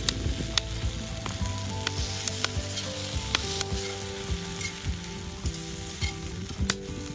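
Edamame pods sizzling in a black iron frying pan over a wood fire, with a steady hiss. Metal tongs stirring and turning them make irregular sharp clinks against the pan.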